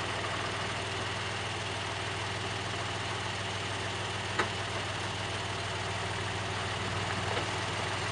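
Diesel engine of a Magirus fire engine idling steadily, with one short sharp knock about halfway through.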